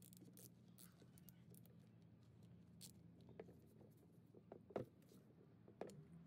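Near silence with faint, scattered metal clicks, the loudest about three-quarters of the way in: a ratchet tightening the screw of a brake caliper piston compressor tool, pushing the caliper piston back.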